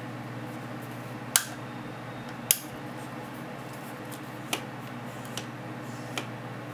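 Five sharp plastic clicks as a Sigma 10-20mm wide-angle lens and its petal hood are handled, the loudest about two and a half seconds in, over a steady low hum.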